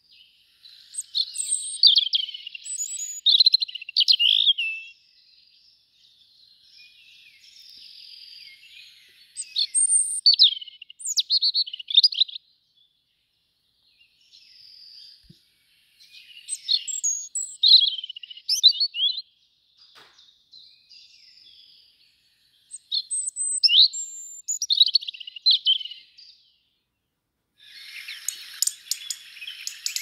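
European robin singing: short phrases of rapid, thin, high-pitched warbling notes separated by pauses of a few seconds, four loud phrases with fainter ones between. Near the end a denser, scratchy chatter of fine clicks starts.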